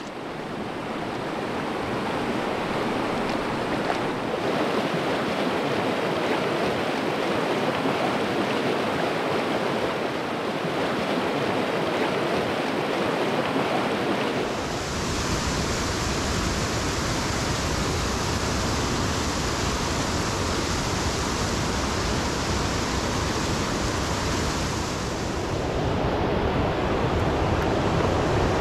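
Rushing river water, a steady loud rush. About halfway through it gains a deeper rumble and more hiss.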